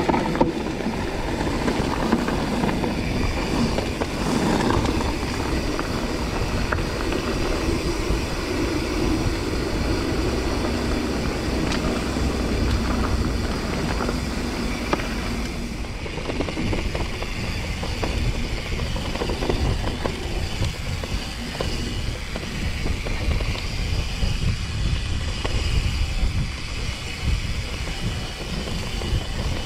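Mountain bike riding over a rough track: a steady low rumble of tyres and wind, with many small knocks and rattles from the bike.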